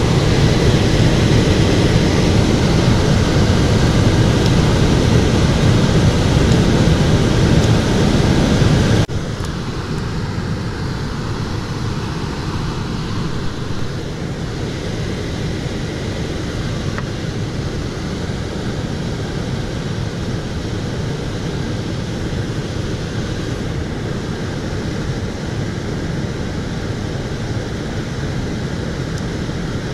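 Indoor air handler running with its electric heat strips on: a steady rush of air and fan noise that drops abruptly to a lower level about nine seconds in.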